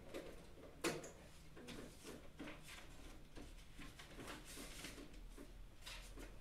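Faint ticking, soft and fairly regular at about two to three ticks a second, with one sharper click about a second in.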